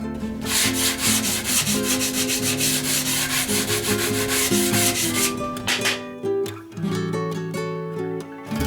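Sanding: a run of rapid back-and-forth rasping strokes that stops a little past halfway, over background guitar music.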